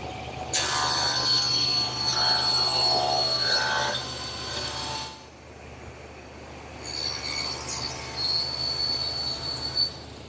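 Table saw cutting pine boards in two passes, each about four seconds long, the blade in the wood giving a high steady whine over the motor's low hum. Between the cuts the saw runs on without load.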